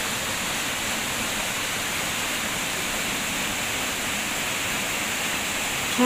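Waterfall rushing steadily, a tall fall of water pouring down a rock face.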